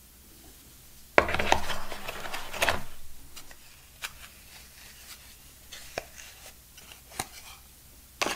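Hands handling a plastic phone charger and its cardboard box tray. A scraping, rubbing burst lasts about two seconds, followed by scattered light clicks and taps.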